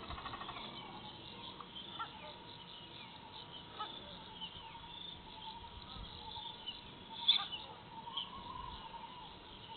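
Faint evening chorus of insects and birds at a wetland: many short, high chirps, over a faint steady hum. A single sharp click stands out about seven seconds in.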